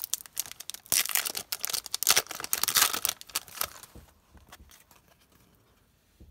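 Foil wrapper of a Yu-Gi-Oh! booster pack crinkling and tearing as it is opened: a dense crackle for about three and a half seconds, then only faint rustles as the cards are handled.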